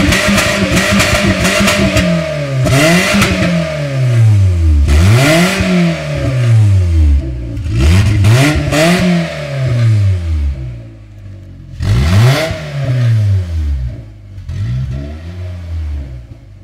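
Car engine revved through its exhaust. It is held at high revs at first, then blipped five or six times, each rev climbing and dropping back to idle, quieter near the end.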